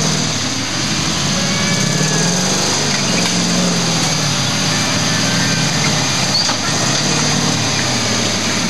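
Off-road 4x4 trial vehicle's engine revving under load as it crawls through deep mud and ruts, its pitch rising and falling with the throttle.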